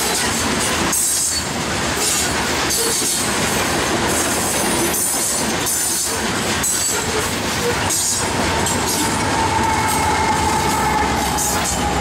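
Loaded coal hopper cars of a freight train rolling past close by: a steady rumble and hiss of steel wheels on rail, broken by repeated clacks at the rail joints. About two-thirds through, a steady high whine comes in.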